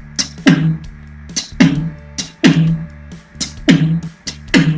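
Human beatboxing: a rhythmic pattern of sharp mouth-made percussive hits, each carrying a low pitched tone, over a steady low hum, the third of eight sounds performed on its own before they are combined into one beat.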